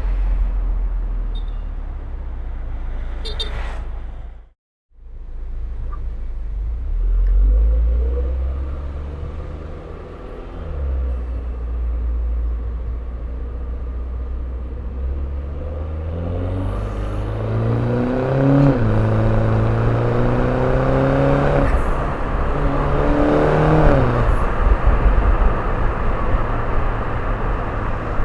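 Turbocharged Mini Cooper's engine running under way with a low rumble. It cuts out briefly near five seconds in. In the second half it accelerates twice, the engine note climbing and then dropping back at each gear change.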